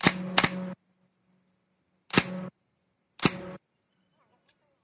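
Pneumatic nail gun firing four times, each shot a sharp crack followed by a brief hiss of released air, as nails are driven into red oak moulding strips; two shots come close together at the start, then one about two seconds in and one about a second later.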